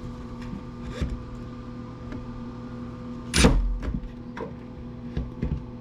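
Hand work on a dismantled planer part as a small plastic piece is cut off it: a few light clicks and knocks, with one loud sharp crack about three and a half seconds in, over a steady background hum.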